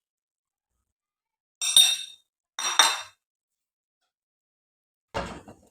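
Two short metallic clinks about a second apart, a metal utensil striking a cooking pot, followed near the end by a duller knock.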